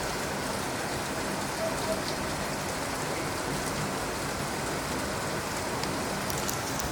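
Steady rain falling, an even hiss with a few faint drips and ticks near the end.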